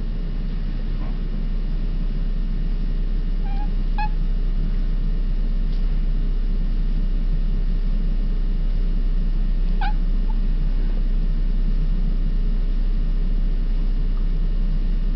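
A tabby cat making a few brief monkey-like chirping calls: two close together about four seconds in, a rising one near ten seconds with a small one just after, and a faint one near the end, over a steady low hum.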